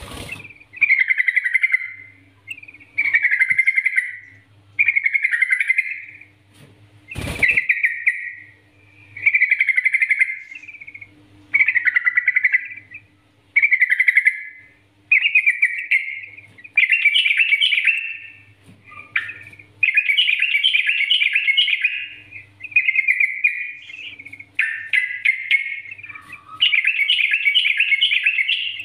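Yellow-vented bulbul in vigorous full song: a run of short, bubbly chattering phrases, about one every one and a half to two seconds, that grow longer and denser in the second half. A single sharp knock sounds about seven seconds in.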